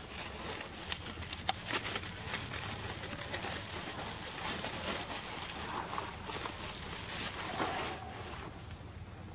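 Forest ambience: a steady high hiss with birds calling, and a few sharp clicks in the first couple of seconds.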